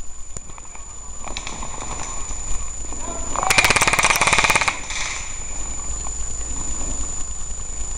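A burst of automatic fire from an airsoft gun: more than a dozen rapid shots in about a second, a little past three seconds in. Twigs and dead branches crackle and snap underfoot around it.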